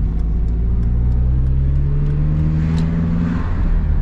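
Car engine accelerating, heard from inside the car: its pitch climbs steadily, then drops about three seconds in.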